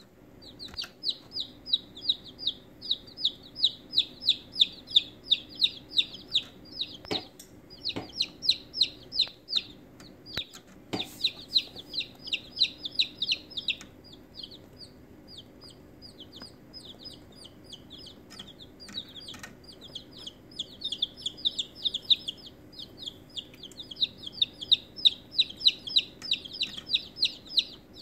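A brood of six day-old Austra White chicks peeping continuously: rapid high cheeps, several a second. There are a few sharp knocks near the middle.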